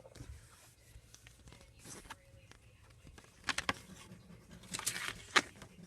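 Handling noise from unpacking CDs: a few sharp clicks and crinkles of plastic and packaging about three and a half seconds in, then a louder cluster near the end.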